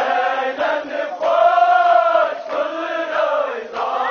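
A group of voices chanting a Kashmiri nohay, a Muharram lament, together, with long held lines.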